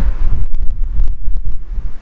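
Wind buffeting the microphone in gusts: a loud, uneven low rumble, with a few light clicks.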